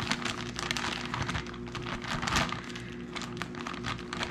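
Plastic bag of powdered sugar crinkling and crackling as it is handled and poured, over a steady low hum from a running microwave.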